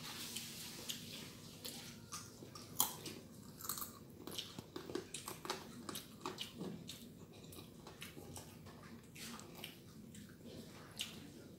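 Close-up chewing and mouth sounds of two children eating rice and side dishes by hand: a steady run of small wet clicks, with a sharper one about three seconds in.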